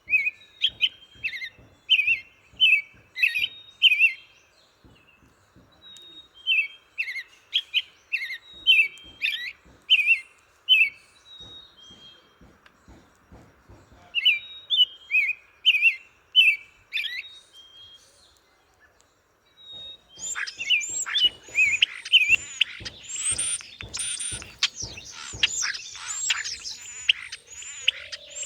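Songbird singing in phrases of repeated falling notes, about two a second, each phrase a few seconds long with short pauses between. In the last third, a busier chorus of several birds with higher chirps takes over.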